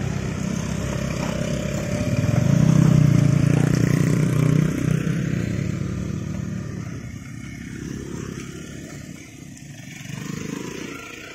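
Small automatic motor scooters riding past one after another, their engines running at low revs. The loudest passes close about three seconds in, then the sound fades as they move away, and another engine swells briefly near the end.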